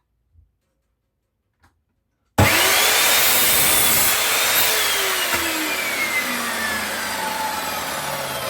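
Electric chop saw starting abruptly about two seconds in and cutting through a piece of wood. Its whine rises quickly, then falls slowly while the sawing noise goes on.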